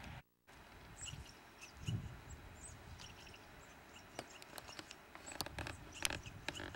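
Outdoor handling noise from a handheld camcorder as its operator moves over rocky, brushy mountain ground: low thumps of footsteps and scattered crackles and clicks of twigs and brush. There is a short gap of silence just after the start, where the recording cuts.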